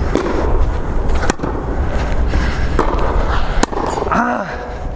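Tennis ball struck with a Head Extreme Tour racket during volleys, three sharp pops spaced about one and a half and then about two seconds apart, over a steady low rumble.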